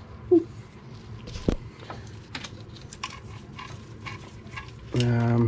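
Scattered light clicks and rustling of wiring connectors and plastic loom being unclipped and pulled through a car's engine bay, with a single knock about a second and a half in. Near the end a man gives a short drawn-out hum.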